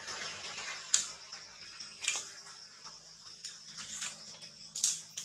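Outdoor ambience: a steady high-pitched hiss, with three sharp clicks or snaps, about one, two and five seconds in.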